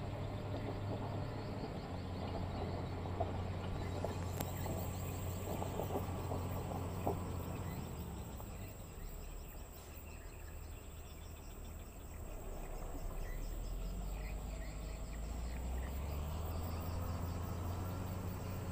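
Caterpillar 120H motor grader's diesel engine running steadily as it grades a stone-filled dirt road, with a few sharp cracks of stone in the first half. It dips quieter around the middle and swells again later. A steady high insect trill runs underneath.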